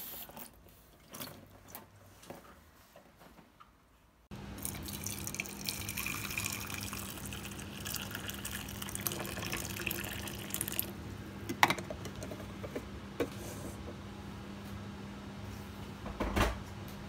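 Boiled water pouring in a steady stream into the clear plastic bowl of a Tommee Tippee Mini-Blend baby food blender to sterilise it, starting suddenly about four seconds in after a few quiet handling clicks. Later come a few plastic clicks and a knock near the end as the bowl is handled and its lid fitted.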